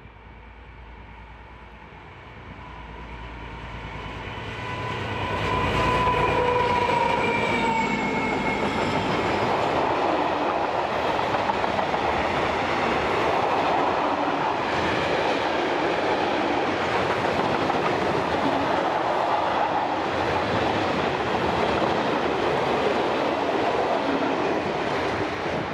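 Two class 742 diesel-electric locomotives approaching with a freight train, growing louder and loudest about six seconds in, their steady tones dipping in pitch as they go by. Then a long string of loaded freight wagons rumbles and clatters past on the track, easing off near the end.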